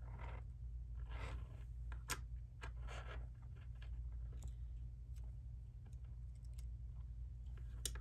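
Small black binder clip and beading cord being handled on a tabletop: a few sharp clicks, one about two seconds in and one near the end, with soft rustling between, over a low steady hum.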